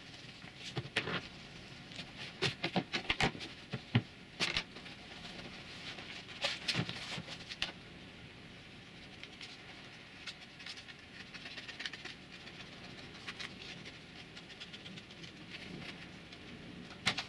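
Vinyl wrap film being unrolled, handled and cut with scissors on a workbench: irregular crinkling, rustling and sharp clicks, busiest in the first half and sparser later.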